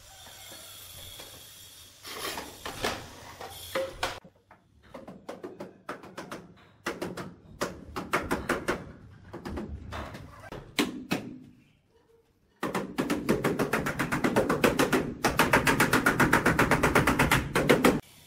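Rubber mallet tapping ceramic wall tiles to bed them into the mortar. The taps come scattered at first, then as a fast, even run of about seven a second through the last five seconds.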